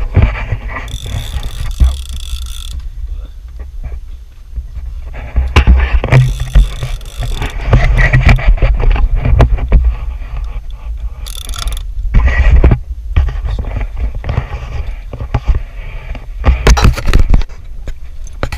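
Big-game fishing reel being cranked under heavy load, with repeated clicking and grinding from the reel's gears, handling knocks, and a steady low rumble underneath.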